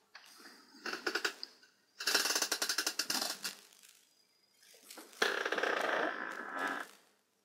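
Computer mouse scroll wheel ratcheting in rapid runs of clicks, a short one about a second in and two longer ones around two and five seconds in, as the 3D viewport is zoomed.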